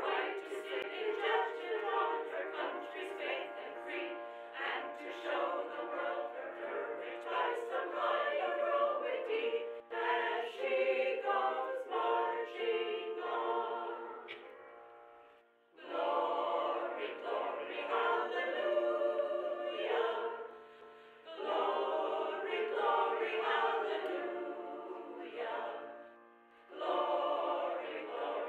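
A choir singing, phrase after phrase, with brief pauses between phrases.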